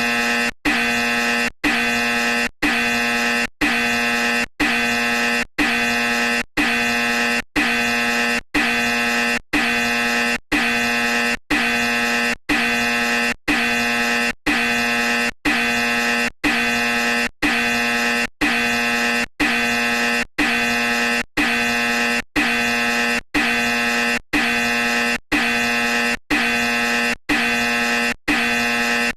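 A loud, harsh horn-like tone sounded in about thirty even blasts, roughly one a second, each cut off by a very short gap.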